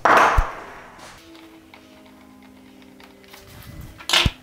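Faint background music with a few held notes. A short, loud burst of noise opens it and a brief knock comes near the end.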